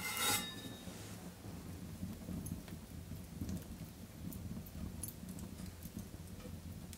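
Wood fire crackling in an open fireplace: scattered sharp pops and clicks over a low steady rumble. A brief scrape with a faint ring comes in the first half-second.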